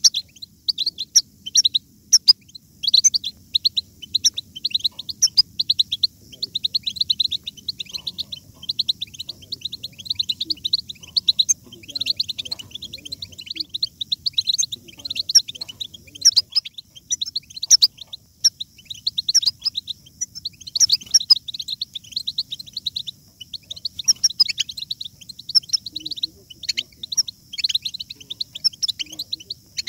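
A flock of European goldfinches twittering: a continuous stream of rapid, overlapping high chirps and trills.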